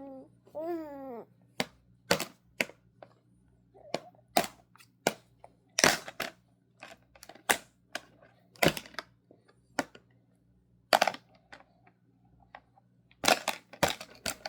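Irregular sharp clicks and clinks of eating utensils against dishes during a meal, about one to three a second, after a brief voice near the start.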